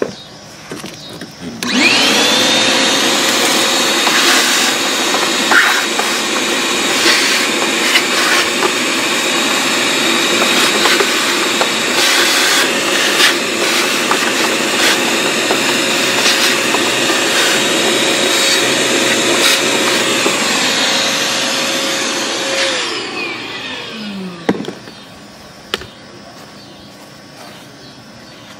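Vacuum cleaner switched on about two seconds in, its motor rising to a steady whine as it sucks out a car's air filter box, with scattered clicks and rattles. Near the end it is switched off and winds down with a falling pitch.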